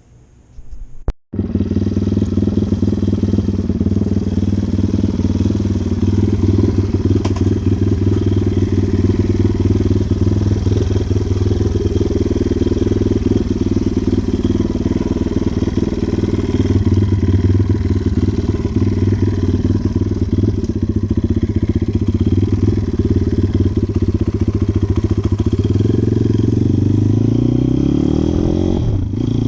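Orion RXB150L's small four-stroke motorcycle engine running steadily, then revving up with rising pitch near the end.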